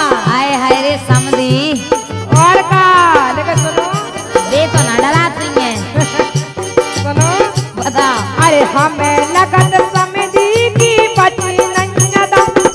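Bundeli wedding gari folk song: women's singing over a regular low drum-like beat and rattling percussion.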